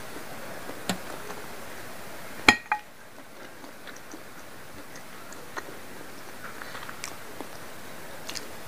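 Close-up eating sounds of squid ink noodles: soft wet chewing with small mouth clicks, and one sharp clink of the metal fork on the plate about two and a half seconds in.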